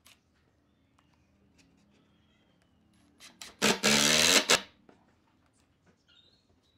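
An electric power tool's motor whirs in one short burst of about a second, a little under halfway through. Faint clicks and knocks of handling come before and after it.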